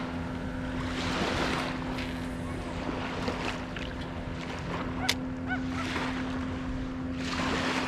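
Wind on the microphone and small waves lapping at the sandy shore, under a steady low drone from a motorboat engine out on the water. A single sharp click about five seconds in.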